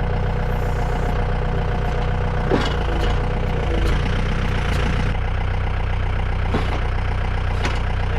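Tractor engine running steadily, with a few light knocks at intervals.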